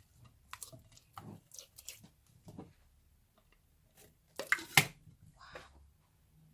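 Clear glue slime being squeezed and pulled in the hands: irregular wet squishes and sticky clicks, loudest a little past halfway.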